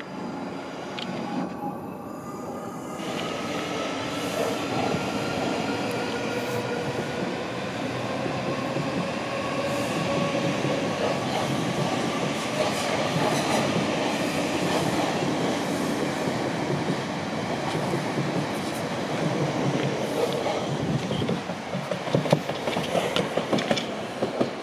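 Two coupled Class 458 electric multiple units pulling away from a stand. The traction motor whine rises steadily in pitch over the first dozen seconds as the train accelerates, over a continuous rumble of wheels on rail. Near the end comes a run of sharp wheel clacks on the track.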